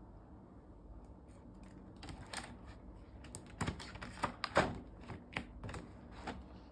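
Stiff pages of a spiral-bound activity book being flipped over, giving a quick irregular run of clicks and taps against the wire binding, loudest about four seconds in.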